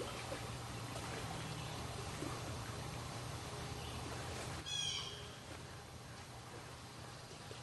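Outdoor lakeside ambience with a steady low hum, and a single short, harsh bird call about two-thirds of the way in; the low hum fades out around the call.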